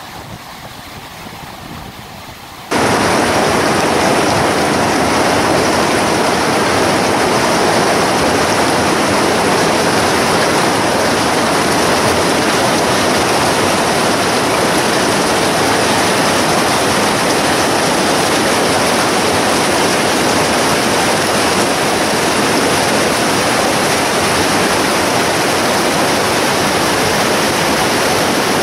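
Glacial meltwater torrent rushing over boulders. About three seconds in the sound cuts abruptly to a much louder, steady rush of water.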